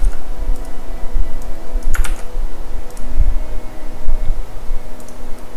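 A few sharp clicks of computer keys and a mouse over a steady low rumble and faint hum.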